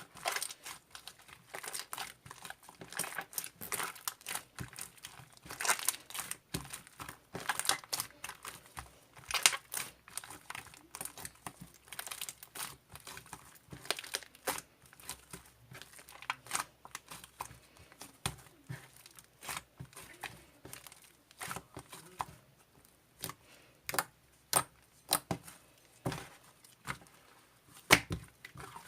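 Hand-kneaded slime, mixed with glycerin, being squeezed and stretched, with irregular crackling and popping as air bubbles trapped in the slime burst.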